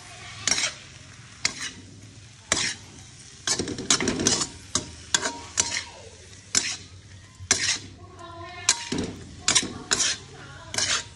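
Metal spatula scraping and knocking against a non-stick frying pan as instant noodles and leafy greens are stir-fried, in irregular strokes about one or two a second. A steady sizzle of frying runs underneath.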